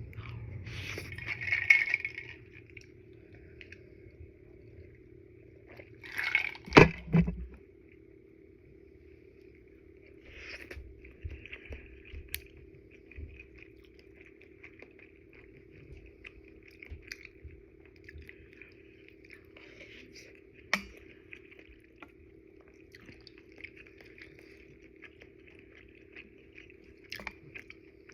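Eating udon noodles: wet chewing and squishing mouth sounds with scattered clicks. They are loudest about two seconds in and again about seven seconds in, over a faint steady hum.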